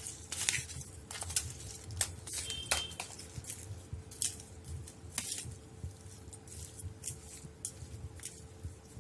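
Perforated steel ladle scraping and tapping against a steel plate while mixing cooked rice, in irregular clicks and scrapes.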